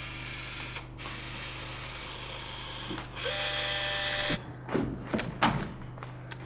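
A small electric motor whirs for about a second, a little over three seconds in, rising slightly in pitch as it spins up, followed by a few sharp knocks and taps.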